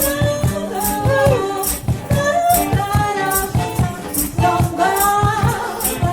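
A vocal trio sings in close harmony, several voices gliding together, over a steady beat of shaken hand percussion such as a shaker or tambourine, with low bass notes underneath.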